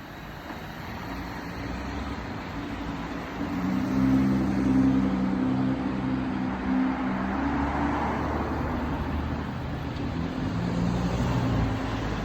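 A motor vehicle's engine running steadily with road noise, growing louder over the first few seconds and staying loud.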